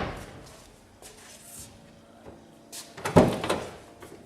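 Mitsubishi Magna car door being worked to test a newly fitted door latch: a door shut just before the start fades out, then a cluster of knocks and clacks from the door and its latch about three seconds in.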